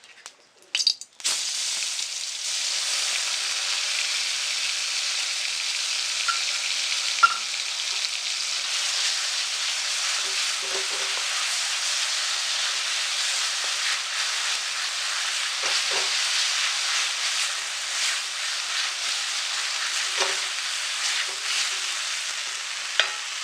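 Onion and garlic masala paste sizzling loudly in hot mustard oil in a kadhai, starting about a second in and staying steady, with occasional knocks of a spatula stirring it in the pan.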